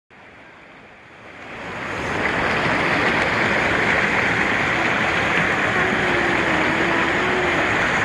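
Mountain stream rushing and splashing over rocks in small cascades, a steady water rush that swells up over the first two seconds or so and then holds.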